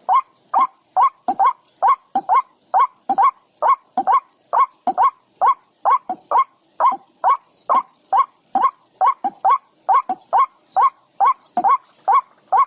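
A bird giving loud, harsh calls over and over, about two or three a second, each call short and rising in pitch.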